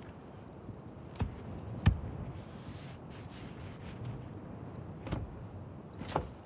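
Four sharp knocks, irregularly spaced and the second the loudest, over a low steady rumble.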